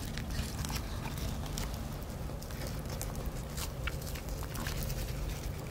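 Crisp nori sheets crackling and rustling in the hands as hand-rolled sushi (temaki) are wrapped: scattered small crackles and ticks over a steady low hum.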